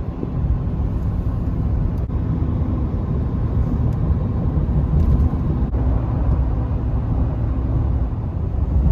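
Steady road and engine rumble heard from inside a moving vehicle while driving, with a few faint clicks.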